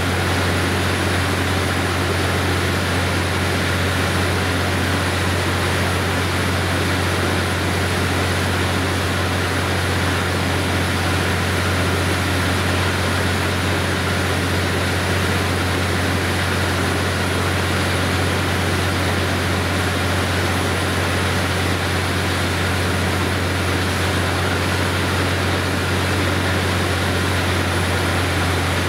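Truck-mounted borewell drilling rig running steadily while drilling, its engine and air compressor giving a loud, unchanging low drone.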